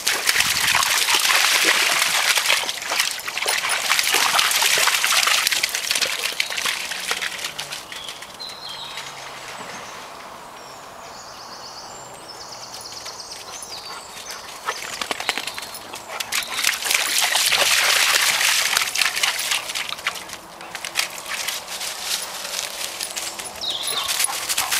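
Footsteps rustling and crunching through dry leaf litter on a woodland path, in two spells of walking with a quieter stretch in the middle.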